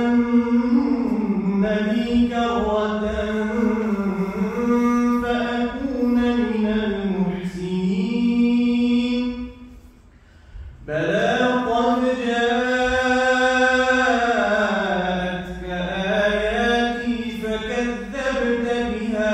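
A man reciting the Quran solo in a slow, melodic chanted style, drawing out long gliding notes. He breaks off for about a second just before halfway, then carries on.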